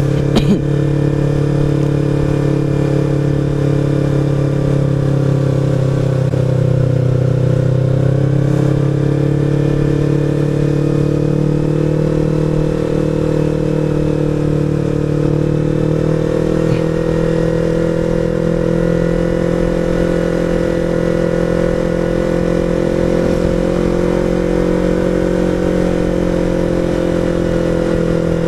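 Sport motorcycle engine running steadily at cruising speed, its pitch drifting gently up and down with the throttle, over rough wind rumble on the microphone. A couple of short knocks about half a second in.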